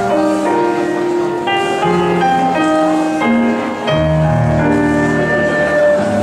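Instrumental music for ballroom partner dancing: a melody of held notes, with a deep bass line coming in about four seconds in.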